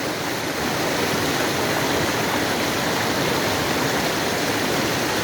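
River water rushing over rocks in a steady, even rush, like rapids or a small fall.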